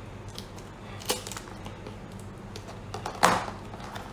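Scissors and a taped cardboard package being handled on a desk: a few light clicks, a sharp knock about a second in and a louder knock about three seconds in.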